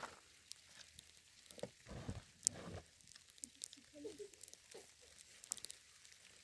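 Scattered small clicks, taps and rustles, as of things being handled, with the sharpest click about two and a half seconds in.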